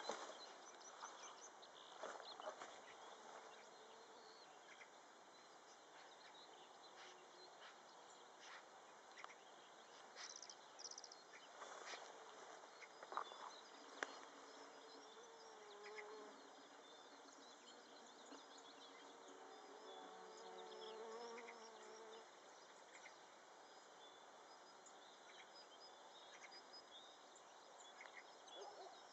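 Near-quiet outdoor ambience in which a flying insect buzzes faintly for a few seconds past the middle, among scattered faint clicks and high chirps.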